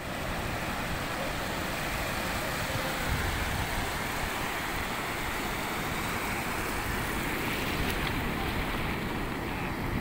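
Breaking ocean surf washing steadily over the shallows, with wind gusting on the microphone.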